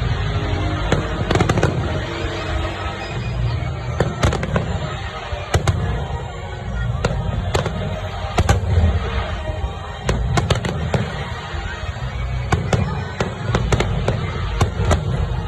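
A fireworks display: many sharp bangs and pops bursting at irregular intervals, several a second at times, over a steady background din.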